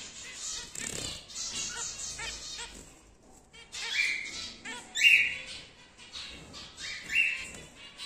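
Caged cockatiels chattering: rapid high chirps throughout, with three louder upward-sweeping calls about four, five and seven seconds in.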